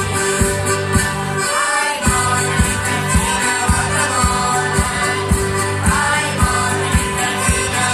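Live folk band playing through the stage speakers: accordion and strummed guitars with singing over a steady beat of about two strokes a second.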